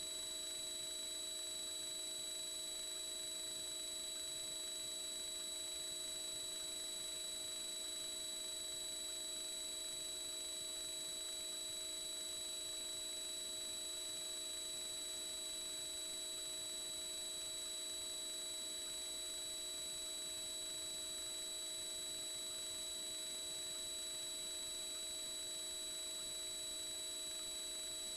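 Steady electronic whine: several constant high tones over an even hiss, unchanging throughout, with no other sound.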